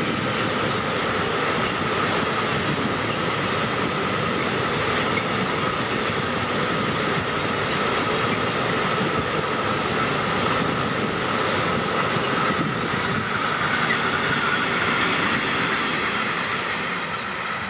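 Freight train of tank wagons rolling past: a steady rumble of wheels on rail with a continuous high ringing tone over it.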